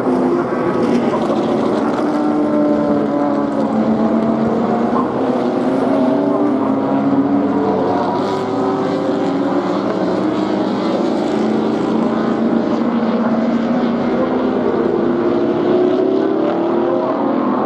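A pack of 1960s racing cars running through a corner one after another. Several engine notes overlap continuously, their pitches rising and falling.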